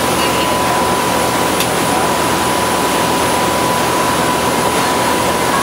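Steady drone and rush aboard a boat under way: an engine running under a loud, even rush of wind and water, with a thin steady whine over it.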